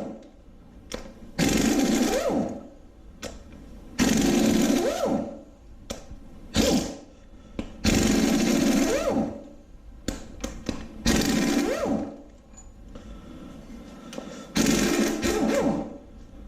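Impact wrench running in about six short bursts of a second or so each, spinning up and winding down each time as it runs bolts loose.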